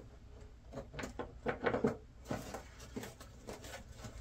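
Foam wing panel of an RC plane being handled and slid onto the fuselage's carbon spar tubes: a sharp click right at the start, then a run of light, irregular knocks and rubbing of foam and plastic parts.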